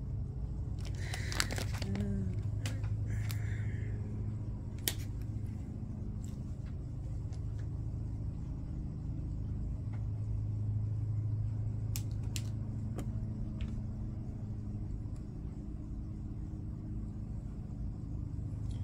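Steady low hum with a few scattered light clicks and taps from small items being picked up off a table.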